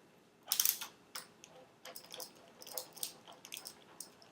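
Hex wrench working the locking bolt out of an electric scooter's folding handlebar: a short louder metal clatter about half a second in, then a run of light, irregular metal ticks as the key is turned.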